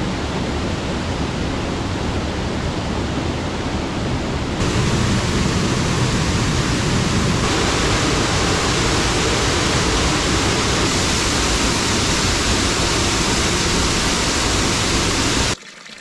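Mountain stream and waterfall rushing, a steady loud wash of water running high after heavy rain. It grows louder about four and a half seconds in and cuts off suddenly just before the end.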